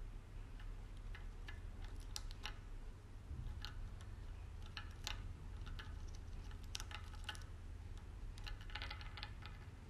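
Dwarf hamster gnawing at a walnut shell: irregular small crunching clicks, a few at a time, bunched into a quick flurry near the end, over a low steady hum.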